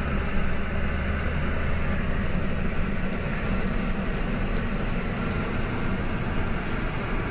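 Tour bus engine and road noise heard from inside the passenger cabin while driving, a steady hum with a deeper engine drone for the first couple of seconds.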